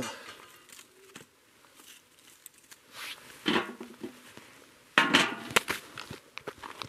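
Metal mesh grill grate set down over a metal fire ring: a sudden clank with rattling and scraping metal about five seconds in, after a shorter scrape a second and a half earlier as it is lifted.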